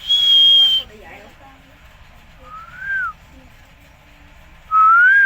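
Green parrot whistling: a steady high whistle in the first second, then two short whistles that rise and then drop in pitch, the second of these louder.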